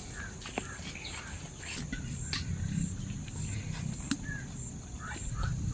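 Outdoor ambience: short bird chirps over a low rumble, with scattered clicks and knocks.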